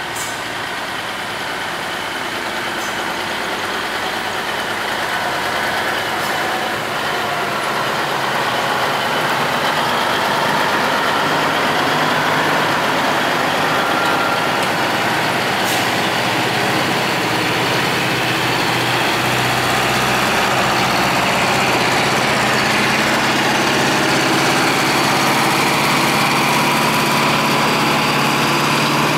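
Diesel engines of classic semi tractors running at low speed as the trucks drive slowly past, a steady drone that grows louder over the first ten seconds and then holds.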